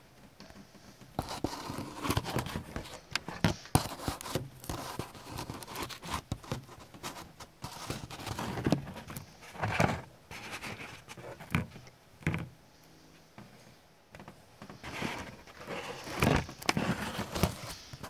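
Irregular clicks, knocks and rustling from hands working the pilot controls of a gas water heater and handling the camera close to the burner access, starting about a second in.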